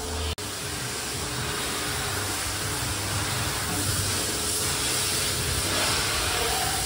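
Pressure washer spraying water at a car on a wash lift: a steady hiss of spray over a low hum, broken by a brief gap just after the start.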